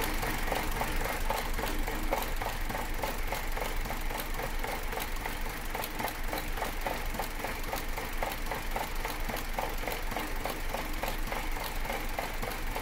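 Opel Combo's Ecotec four-cylinder petrol engine idling roughly, shaking and stuttering with an even, pulsing beat. It is a misfire that the mechanic suspects comes from the spark plugs or the ignition module, possibly the air-mass meter.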